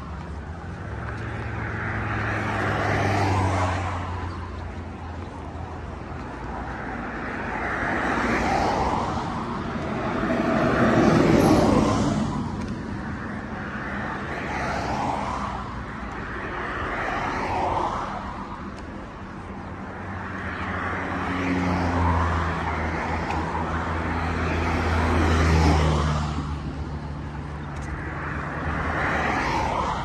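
Road traffic on the coastal road: cars pass one after another, each swelling and fading. The low engine hum of a heavier vehicle comes in near the start and again about two-thirds through.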